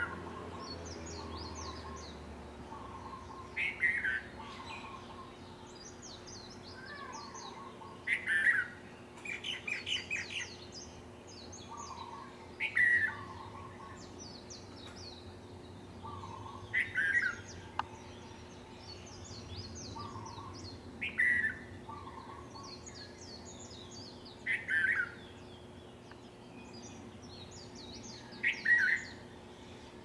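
Several birds calling in the morning chorus. One loud, short, falling call repeats about every four seconds, with a quick run of notes around ten seconds in, over steady fainter high-pitched chirping.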